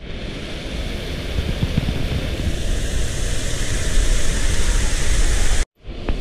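Wind buffeting the microphone over the steady rush of splashing fountain water, the hiss of the water growing louder about halfway through. The sound cuts off abruptly near the end.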